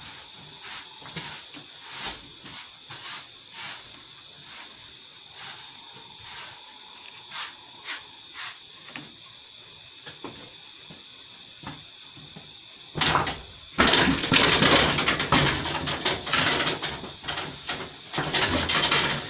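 Crickets trilling steadily, with regular clicks about twice a second. About thirteen seconds in, a louder rustling and knocking starts as a pony pushes up against its wooden stall wall and the tarp draped over it, and it keeps on to the end.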